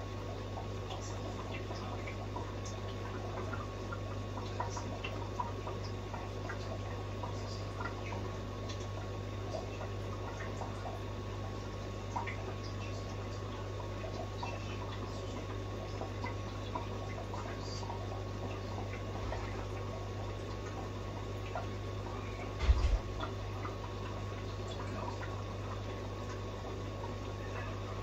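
Aquarium water and equipment running: a steady low hum with faint trickling water and scattered small ticks. A brief knock sounds once, about 23 seconds in.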